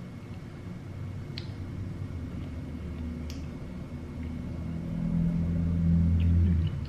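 A low rumble that swells over a few seconds, is loudest near the end, then cuts off suddenly; two sharp clicks come about one and a half and three seconds in.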